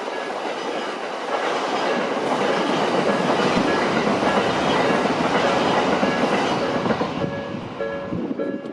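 An electric commuter train passes over the level crossing, its wheels clattering over the rail joints, loudest midway and fading near the end. As it fades, the crossing's warning bell is heard ringing in a steady repeating ding, about two strikes a second.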